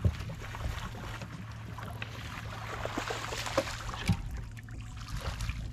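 Fishing boat on the water: a steady low motor hum, with scattered small knocks and a rushing noise that swells around the middle.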